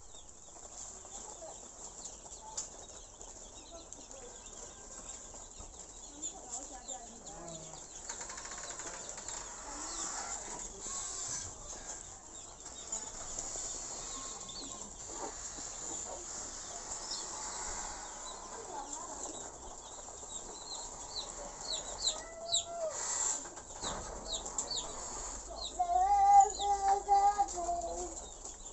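A brood of day-old broiler chicks peeping, many short high chirps overlapping throughout. A louder, lower held call with several tones stands out near the end.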